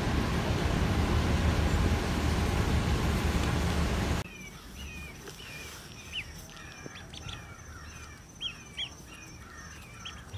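A loud, steady rushing noise that cuts off abruptly about four seconds in. After it, ducklings peep softly: scattered short, high cheeps that rise and fall in pitch.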